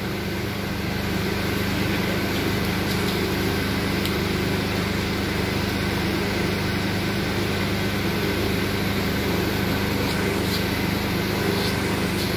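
Steady machine hum with a low drone and a few faint high tones, unchanging in level, with a few faint clicks.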